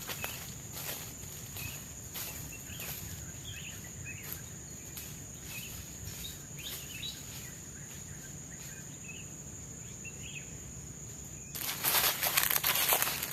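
Tropical forest ambience: a steady high-pitched insect drone with faint, scattered bird chirps. Near the end, loud rustling footsteps through leaf litter start suddenly.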